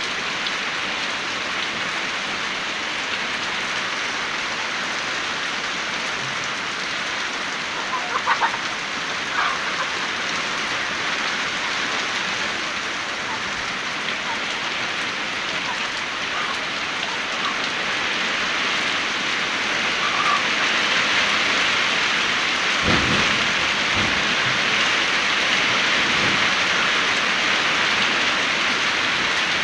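Heavy rain pouring steadily, growing heavier about two-thirds of the way through. A few low thumps come near the end.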